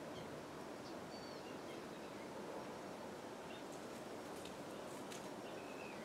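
Faint, steady outdoor background noise with a few faint, short bird chirps, one about a second in and a short whistled note near the end.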